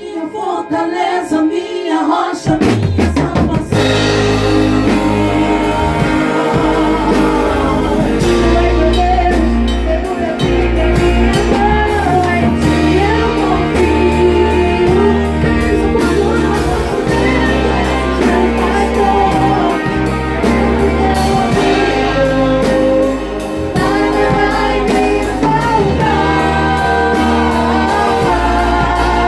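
A worship band rehearsing a gospel song: singing over drum kit, bass and guitar. It opens with a few sparse held notes, and the full band comes in about three seconds in.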